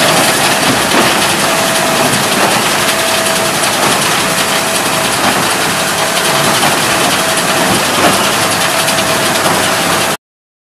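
Hesston 4790 square baler running, driven by a tractor, with a steady mechanical clatter and engine noise and a short tone recurring about once a second. It cuts off suddenly near the end.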